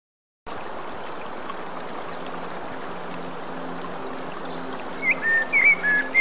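Water from a three-tier resin garden fountain falling from its spouts and splashing steadily into the basins. About five seconds in, a bird begins a run of short chirping calls, louder than the water.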